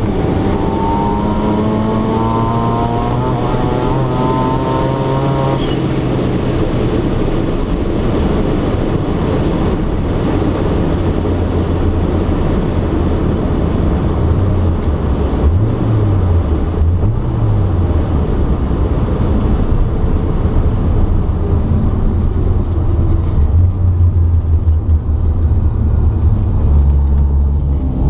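Mazda RX2's turbocharged 13B twin-rotor engine heard from inside the cabin, running hard at high revs for about the first five seconds, then lifting off. After that it runs low and uneven as the car rolls back, with two short blips of the throttle in the middle and a heavy low rumble near the end.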